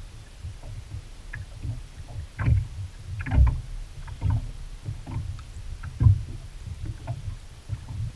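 Small waves lapping and slapping against the hull of a drifting boat: an irregular run of low thuds over a steady low rumble, three of them louder than the rest.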